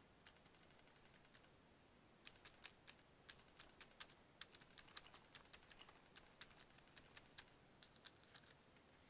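Faint, quick taps of a makeup sponge dabbing ink through a stencil onto paper, in irregular runs of several taps a second.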